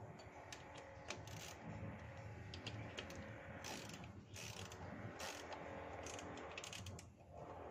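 Ratchet wrench clicking as the reinstalled rear brake caliper of a Benelli Imperiale 400 is bolted back on: a continuous run of quick clicks with a few sharper metallic clicks among them, stopping just before the end.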